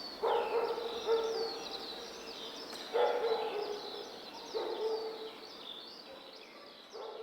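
Birds chirping in a nature-ambience sound effect: quick high, falling chirps all through, and a lower animal call that comes four times, each about a second long.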